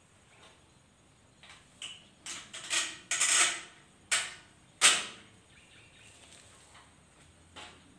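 Metal knocks, clinks and a short rattle from a steering column being handled and fitted into a welded steel tube frame. The knocks come irregularly, with a longer rattle about three seconds in and the loudest knock near five seconds in, then one light knock near the end.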